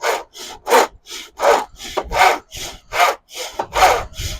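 Hand-powered miter box saw cutting through wooden trim in steady back-and-forth strokes, about two and a half a second, with stronger and weaker strokes alternating.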